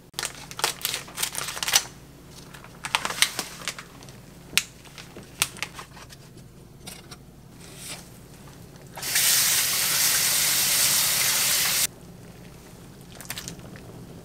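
Light kitchen clatter and clicks, then a kitchen tap running hard into a steel sink for about three seconds and shutting off abruptly, while fresh kalguksu noodles are held over the sink, followed by a few more soft clicks.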